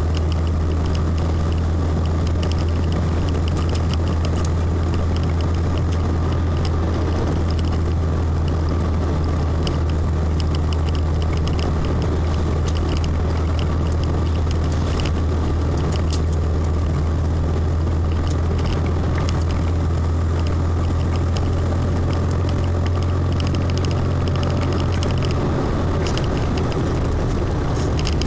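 Car driving along a wet road, heard from a camera mounted on the outside of the car: a steady low drone of engine and road noise with scattered small ticks and crackles throughout.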